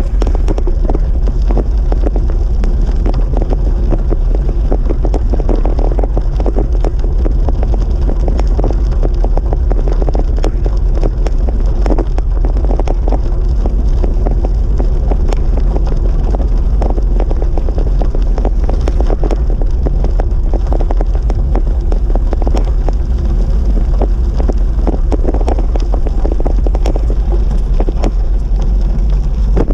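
Steady wind buffeting the microphone of a moving bicycle rider, a loud, low rumble.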